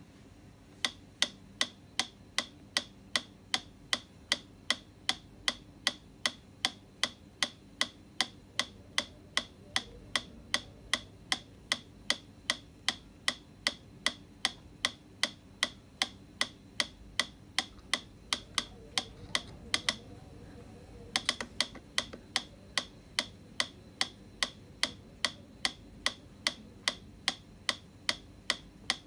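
Wind-up pendulum metronome in a wooden case ticking steadily, a little over two sharp ticks a second, starting about a second in. Near two-thirds of the way through the ticking stops for about a second, then resumes.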